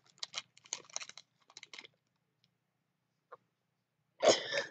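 A person chewing a jelly bean: small irregular crackly mouth clicks during the first two seconds, then a brief louder sound near the end.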